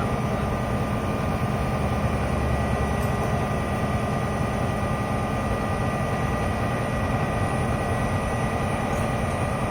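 Fire truck's diesel engine idling steadily.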